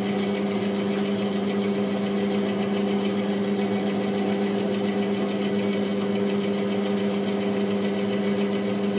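Charnwood B250 bandsaw running with no load, a steady hum from its motor and freely running blade. The blade runs clear of the guide bearings, with no movement on the bearings.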